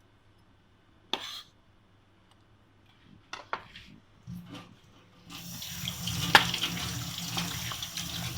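A few short knocks of kitchenware, then a kitchen tap turned on about five seconds in, water running steadily into the sink.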